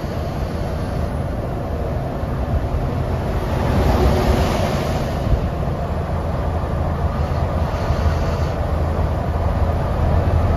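Steady low engine drone and road noise inside a bus cruising on a highway, swelling a little about four seconds in.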